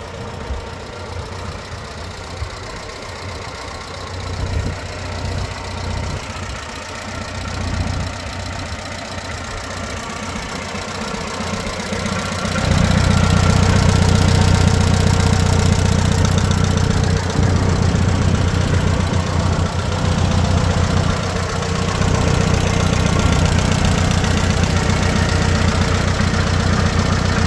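Case 530 tractor's four-cylinder engine, running on LP gas, idling steadily. About twelve seconds in it becomes louder and fuller.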